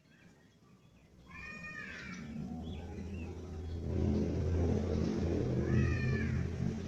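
A puppy gives two short, high whining cries, about four seconds apart. Under them a motor vehicle's engine rumble builds and becomes the loudest sound from about the middle on.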